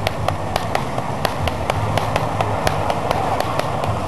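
Martial-arts practice sticks clacking against each other in quick sparring exchanges, several sharp knocks a second at an uneven pace, over a steady low rumble.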